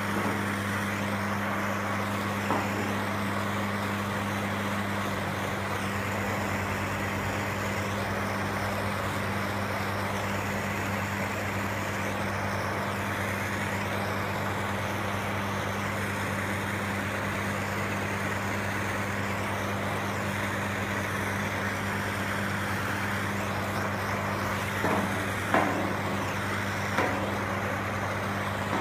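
A steady machine hum with a hiss, holding one low pitch, with a few short knocks near the end.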